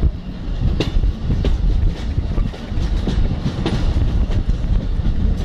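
Train running on the rails: a heavy low rumble with irregular clacks of the wheels over the rail joints.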